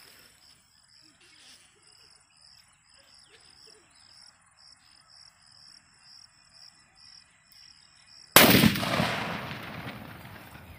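Faint insects chirping in an even pulsing rhythm, then about eight seconds in a 1 kg country firecracker (nattu vedi) goes off in a single loud blast that echoes and dies away over the next two seconds.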